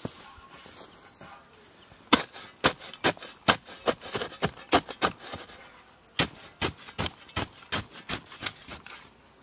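Spade blade chopping repeatedly into hard, dry soil: quick sharp strikes about two to three a second, starting about two seconds in, with a short pause a little after halfway before another run of strikes.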